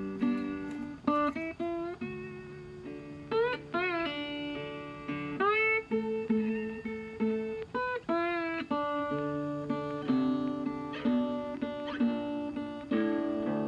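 Background music: a plucked guitar tune, with a few notes sliding in pitch.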